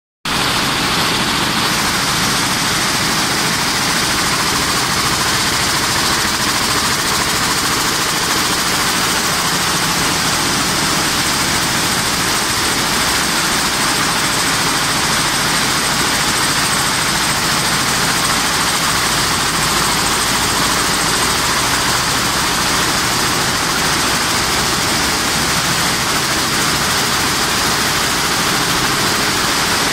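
Toyota air-jet weaving loom running: a loud, steady mechanical noise with a hiss and a thin high whine that never lets up.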